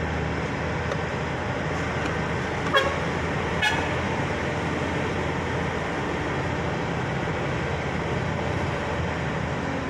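Steady engine and road noise from inside a moving vehicle, with two short horn toots a little under a second apart, about three seconds in.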